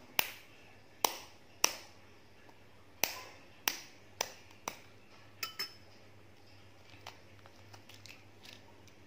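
A metal spoon tapping the shell of a balut (fertilised duck egg) to crack it: about nine sharp taps, some with a brief ring. A few faint crackles of the shell follow near the end.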